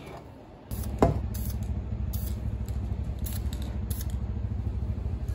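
Aerosol spray can of primer spraying, a steady rush that starts a little under a second in, with a sharp click just after it begins.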